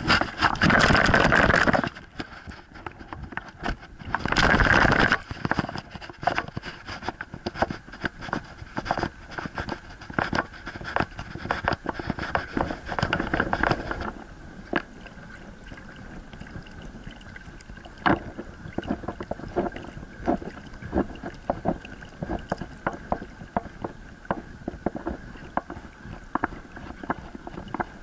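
Water splashing and washing along the hull of a moving pedal boat, close to the microphone, with many small irregular clicks and scrapes. Loud rushes of splash or wind come in the first two seconds and again about four to five seconds in, and from about fourteen seconds on it settles to a quieter wash with scattered taps.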